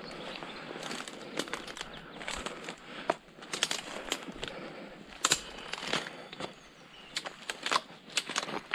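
Dead twigs and dry branches crackling and snapping as someone climbs and steps through a heap of cut brush. The snaps come irregularly over a light rustling.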